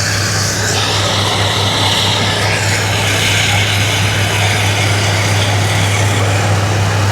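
An engine running steadily, a constant low hum with a hiss over it.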